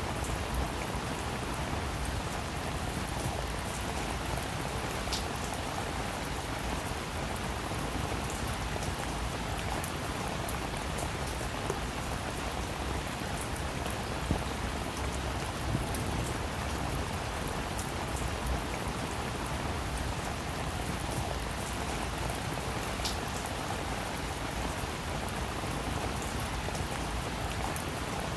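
Steady rain falling, an even hiss with scattered drops ticking now and then.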